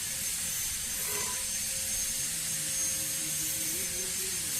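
Steady background hiss and hum, with a faint distant voice in the second half.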